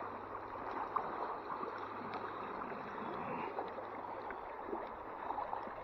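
Creek water flowing and splashing close to the microphone: a steady wash of moving water with small splashes through it.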